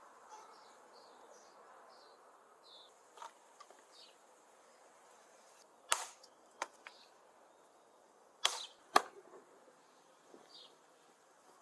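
Meat cleaver chopping a raw lamb carcass on a wooden stump block: a few sharp chops, the loudest in two close pairs about two seconds apart.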